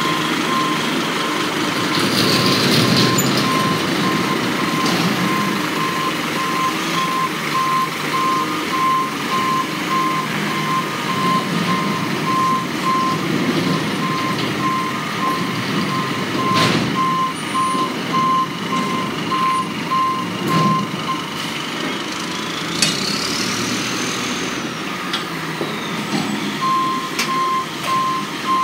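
Front-loading garbage truck reversing, its back-up alarm beeping steadily about once a second over the diesel engine running. The beeping stops for a few seconds near the end, while a brief whine rises and falls, then starts again.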